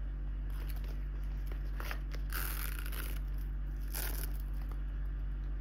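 Gold-tone metal chain strap of a small Chanel flap bag jingling and rattling as it is handled, loudest in two bursts about two and a half and four seconds in. A steady low hum runs underneath.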